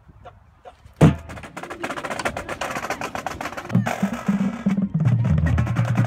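Marching band music dominated by drums: fast, dense drum and percussion strokes start suddenly about a second in, and low sustained brass-like notes join about halfway through.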